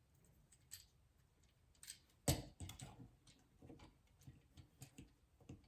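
Scattered faint clicks and taps from a plastic Transformers action figure being handled and posed, the loudest about two seconds in.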